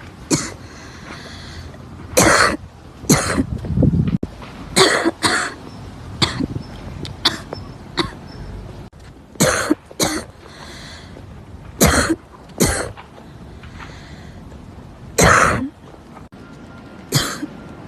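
A girl coughing repeatedly: short, separate coughs, often in pairs, a second or two apart, with breaths drawn between them.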